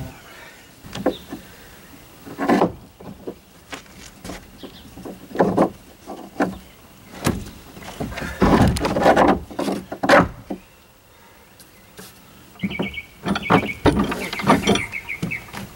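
Irregular knocks, clatters and scrapes from clamps and a plywood transom board being handled and fitted into a boat hull, with a dense run of knocking about halfway through.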